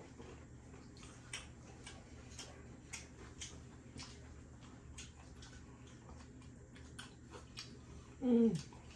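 Close-miked eating: scattered crunches and mouth clicks of someone chewing crispy fried food, at about one or two a second. A little before the end comes a short falling vocal 'mm', the loudest sound.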